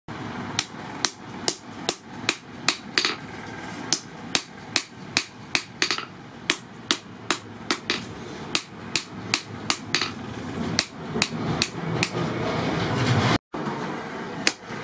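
Hand hammer forging a red-hot steel knife blade on a steel post anvil: a steady run of sharp metal-on-metal blows, about two to three a second. The blows break off with a sudden gap near the end, then a few more follow.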